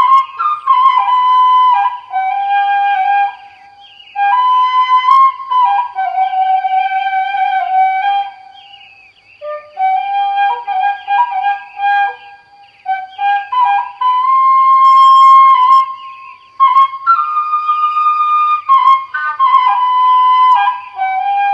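Background music: a flute playing a melody in short phrases with brief pauses between them.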